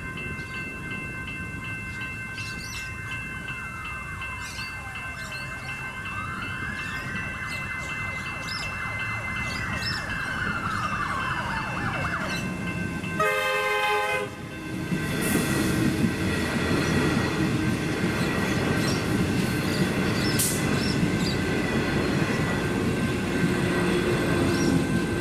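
Electronic level crossing bells ringing steadily, with a tone gliding down, up and down again behind them. About 13 seconds in a train horn sounds for about a second, then an electric suburban train passes over the crossing, louder than the bells, its rumble running to the end.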